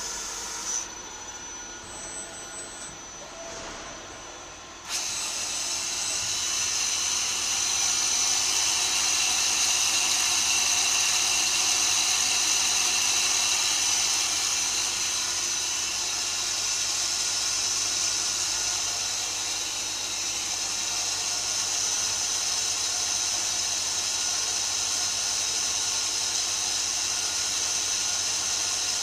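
Maier ML 26DY Swiss-type CNC lathe running: a steady machine noise with a high whine. It is quieter for the first few seconds and louder from about five seconds in.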